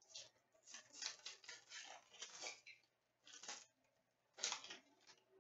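Trading cards being handled and slid against one another: faint rustles and flicks of card stock, with two sharper flicks a little past halfway and near the end.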